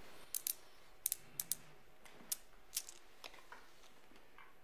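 Teaspoon clinking against a small china coffee cup as it is stirred: a run of light, sharp, irregular clicks in the first three seconds, then a few more spaced-out ones.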